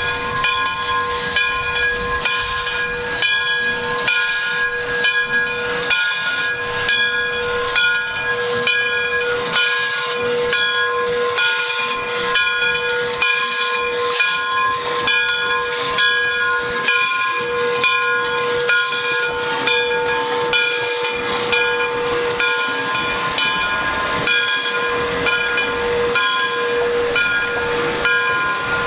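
Frisco 1630, a 2-8-0 steam locomotive, working slowly: steam hisses in regular bursts about once a second, over a steady high whine.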